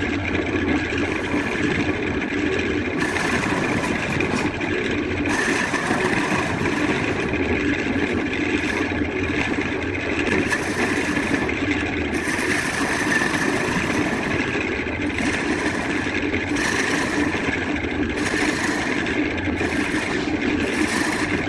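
Wood lathe running steadily, with repeated short patches of hiss as the spinning wood is worked.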